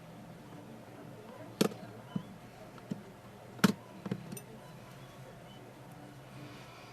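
Several sharp clicks and taps of small tools and phone parts being handled on a repair bench, irregularly spaced, the loudest about halfway through, over a faint steady hum.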